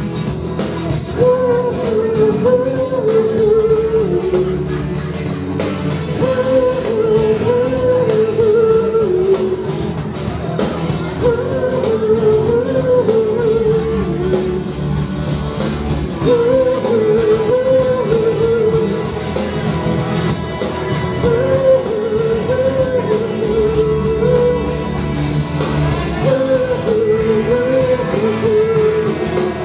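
A woman singing into a handheld microphone over an amplified rock backing track, her melody going in repeated phrases of a few seconds each.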